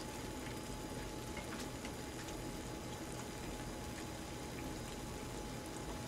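Sukiyaki broth simmering in a pan on a portable gas burner: a steady, faint bubbling hiss.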